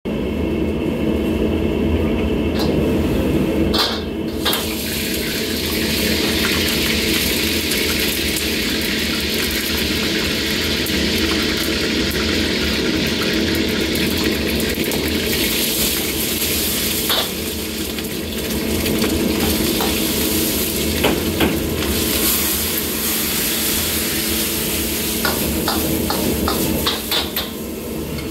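High-flame gas wok burner running with a steady rush under a carbon-steel wok; about four seconds in, food hits hot oil and a loud sizzle begins, egg and then noodles and vegetables frying. A metal ladle scrapes and clinks against the wok at intervals, more often near the end.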